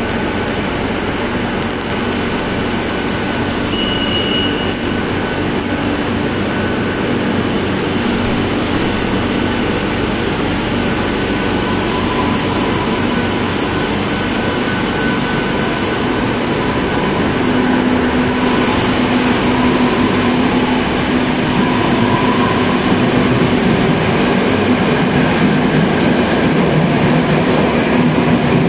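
Madrid Metro Line 5 train standing at a platform, running steadily with a few held tones, then pulling out and getting louder toward the end as it leaves into the tunnel. A brief high tone sounds about four seconds in.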